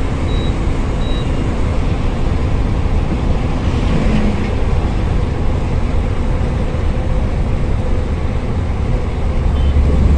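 Loaded goods truck running at cruising speed, heard from inside the cab: a steady low engine drone mixed with road and wind noise.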